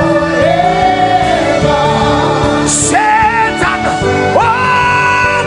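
Gospel worship music: a voice sings long held notes with vibrato, sliding up to a higher held note near the end, over a steady instrumental backing.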